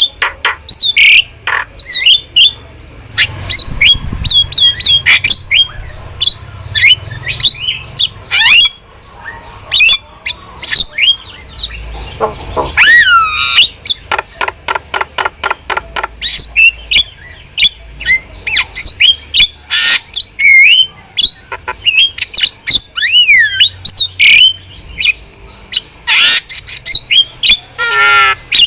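A starling (jalak) chattering without pause: fast harsh squawks and clicks mixed with whistled notes that glide up and down, several calls a second.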